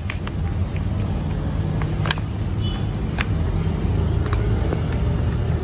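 Steady low hum of a vehicle engine idling, with a few sharp plastic clicks as the new diesel fuel filter is pressed into its housing until it snaps into place.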